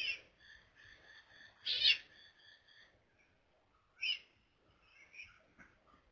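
Newborn leopard cubs calling with high-pitched mews and squeals: three loud calls about two seconds apart, with fainter, quicker chirps between them.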